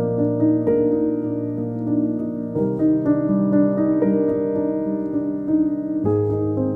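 Background music only: slow, sustained keyboard chords, the harmony shifting every couple of seconds.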